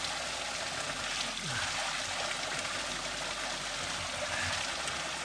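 Spring water bubbling up out of the ground and running off as a stream, a steady rushing of water.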